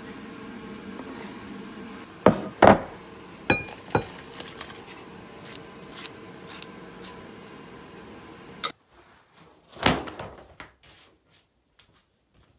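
Cooking sounds over a steady fan hum: sharp clanks of a metal ladle against a pan and bowl, then a few light snips of kitchen scissors. The hum and kitchen noise cut off suddenly about two-thirds of the way in, leaving near quiet with one soft knock.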